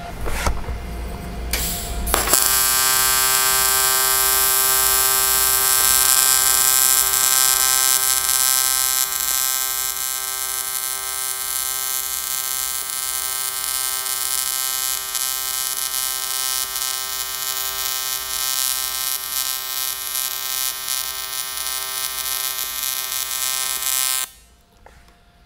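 AC TIG welding arc on aluminium at a fixed 100 amps from a trigger switch: a steady buzz with a high hiss. It starts about two seconds in and cuts off suddenly near the end when the trigger is released.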